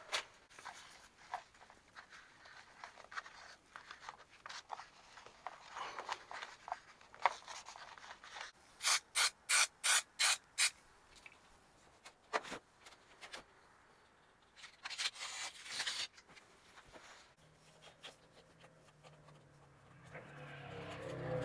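Aerosol can of 3M Super 77 spray adhesive hissing in about six short bursts in quick succession, then one longer spray, amid paper rustling and hand-handling noises. Near the end, hands rub and press a patch flat against the trailer's fiberglass wall.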